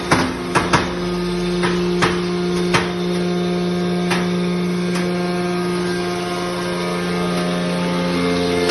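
Enerpat SMB-L1270-125T semi-automatic hydraulic metal baler running: a steady machine hum with sharp metallic knocks, several in the first few seconds and fewer after, and the hum changing tone near the end.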